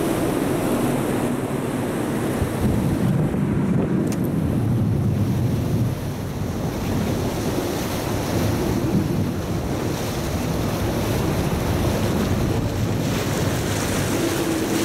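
A river ferry under way: its engine running with water rushing along the hull and wind buffeting the microphone, a steady, even noise.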